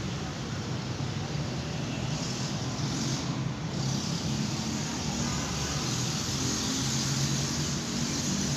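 Steady low background rumble with a hiss, of the kind heard from road traffic; the hiss grows brighter about two seconds in.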